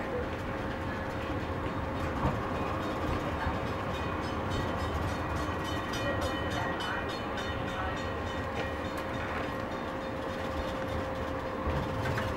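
Calgary C-Train light rail vehicle (Siemens-Duewag U2) running along street track, heard from the driver's cab: a steady rumble of wheels on rail under a steady hum, with light clicking between about four and nine seconds in.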